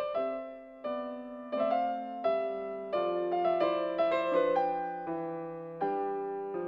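Background music: slow, soft solo piano, single notes struck about once or twice a second, each left to ring and fade.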